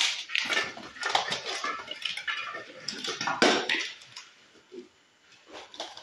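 Piglets squealing and grunting, busiest over the first four seconds, with some clattering mixed in; a couple of shorter sounds follow near the end.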